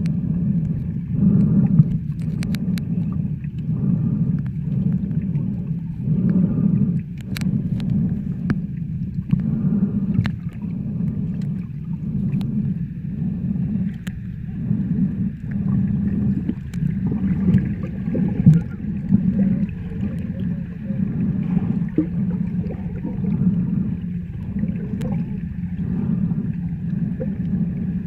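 Muffled underwater water noise picked up by a camera held below the surface: a low rumble that swells and eases every second or two as the water moves, with faint scattered clicks.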